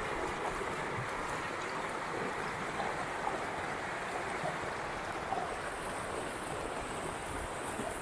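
Shallow mountain river rushing steadily over rocks and stones.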